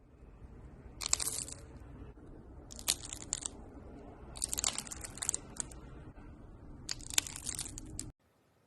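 Slime being pressed and squeezed by hand, with four bursts of crunchy crackling over a steady squishing, cutting off abruptly near the end.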